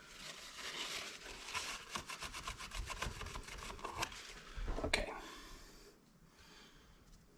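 Paper towel wetted with alcohol scrubbing the inside of a mechanical seatbelt chime module's case in quick back-and-forth rubbing strokes, cleaning the surface so the foam tape will stick; the rubbing stops after about four seconds.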